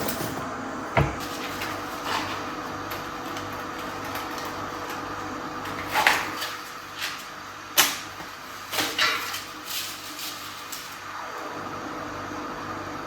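Scattered knocks and clicks, like things being handled or a cupboard opened and shut, loudest about six and eight seconds in, over steady background noise.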